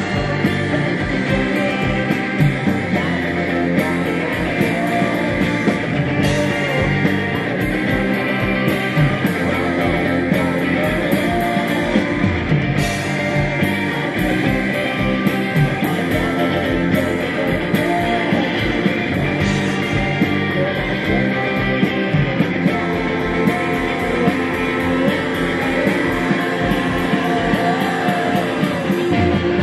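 Live indie rock band playing a song, with electric guitars, bass and drums keeping a steady beat and a voice singing over them.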